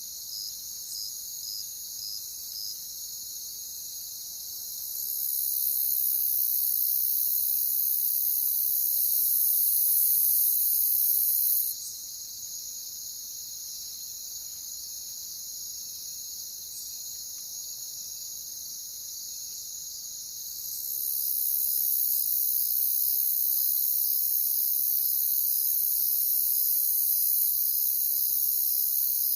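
A chorus of crickets trilling steadily, with a pulsed chirp about two times a second in the first few seconds. A higher, louder insect trill comes in about five seconds in, cuts off suddenly near twelve seconds, and starts again about twenty-one seconds in.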